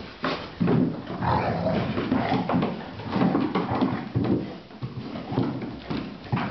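Dogs play-fighting on a hardwood floor: irregular play vocalising from the dogs mixed with the scuffle of paws on the boards, coming in uneven bursts.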